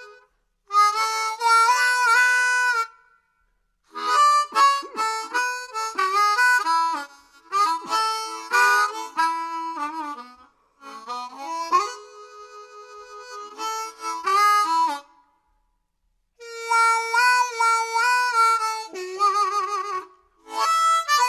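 Harmonica music playing in short phrases of chords, with sudden dead-silent breaks between them and wavering notes near the end.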